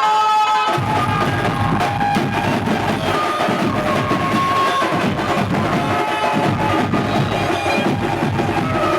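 Dhumal band playing: a fast, dense drum rhythm enters about a second in beneath a sustained melody line.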